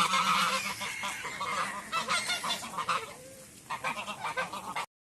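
A flock of ducks calling, with many short overlapping quacks and honks. The calls thin out briefly a little past the middle, pick up again, and then stop abruptly just before the end.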